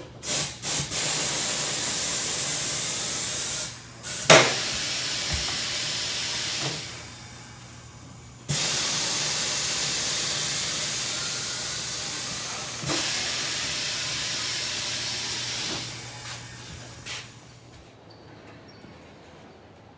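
Loud, steady rushing hiss of wind on the microphone in a moving vehicle. It comes in several stretches that start and stop suddenly, with one sharp knock a little after four seconds in.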